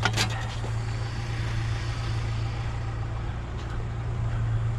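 Steady low hum of a vehicle engine idling, with a short knock just after the start.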